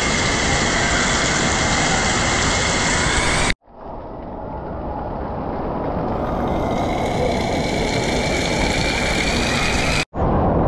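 Loud, steady rushing-water din echoing through an indoor water park. It cuts out abruptly about a third of the way in, swells back over several seconds, then drops out again briefly near the end.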